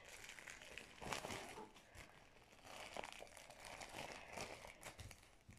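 Faint crinkling and rustling of plastic bags being handled, in scattered short crackles.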